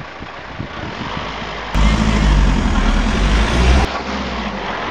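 A car driving past close by: a loud low engine and tyre rumble that starts abruptly about two seconds in and cuts off just as abruptly about two seconds later, over quieter street noise.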